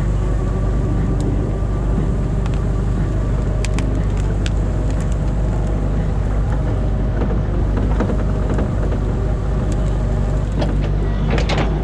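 Excavator's diesel engine running steadily at a constant speed, heard from inside the cab. A few short, sharp clicks sound over it, several of them close together near the end.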